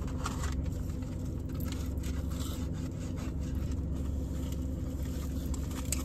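Steady low hum inside a car's cabin, with faint rustling and small clicks of paper food wrappers being handled.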